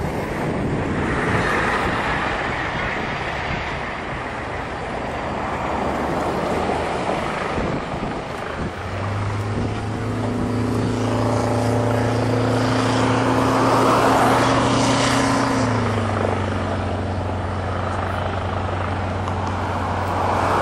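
Wind noise on the microphone over a distant vehicle rumble, joined about nine seconds in by an airport crash-rescue fire truck's engine hum. The hum is steady and drops in pitch about sixteen seconds in.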